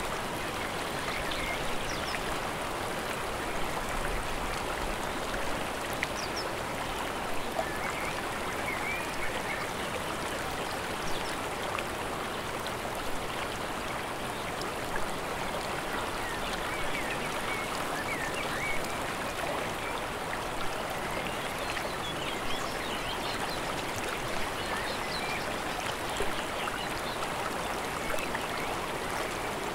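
Fast-flowing mountain stream water rushing steadily, with faint short bird chirps at times.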